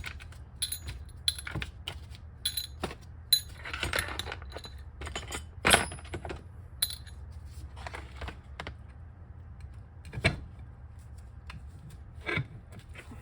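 Scattered metallic clinks, clicks and knocks of small steel screws and hand tools being handled while an electric scooter hub motor is taken apart, with a brief scrape about four seconds in and a louder knock near ten seconds. A steady low hum runs underneath.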